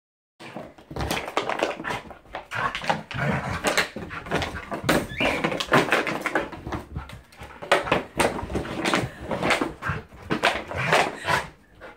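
An empty plastic bottle crackling and knocking as a dog noses, paws and mouths it across the floor, in quick irregular bursts. A short high whine from the dog comes about five seconds in.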